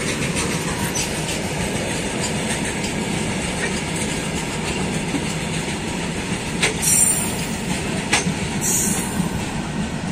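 Fast goods train's open-top freight wagons rolling past at close range: a steady rumble and clatter of steel wheels on the rails, with a couple of short high-pitched wheel screeches about two-thirds of the way in. The sound begins to fade near the end as the brake van, the last vehicle, goes by.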